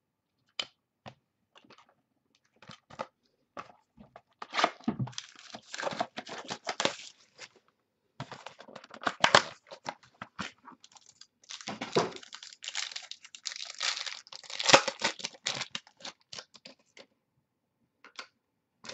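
A Prime Signatures football trading-card pack being torn open, its wrapper crinkling as the cards are pulled out. It starts with a few light clicks of handling, then comes in bursts of tearing and crinkling.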